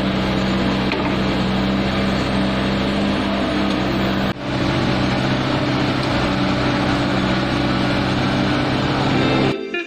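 Road construction machinery engine running steadily with a low, even hum, briefly broken about four and a half seconds in; it cuts off just before the end as music starts.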